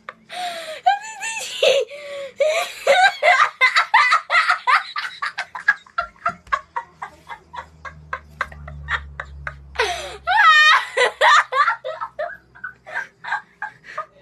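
A boy in a fit of laughter: rapid breathy bursts of laughing, several a second, broken by high squealing shrieks about a second in and again about ten seconds in.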